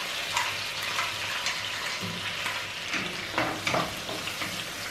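Oil sizzling steadily in a wok with tomato pieces over a low flame, as ground spice paste goes in and a wooden spatula stirs it through. A few light scrapes and knocks sound over the sizzle.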